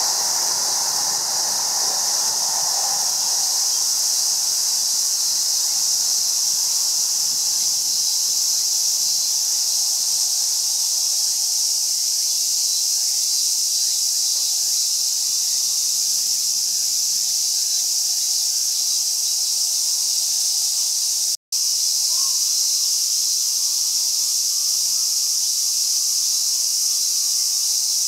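Cicadas droning steadily at a high pitch in a summer chorus. A passing electric train's rumble fades away over the first several seconds. The sound cuts out for an instant about 21 seconds in.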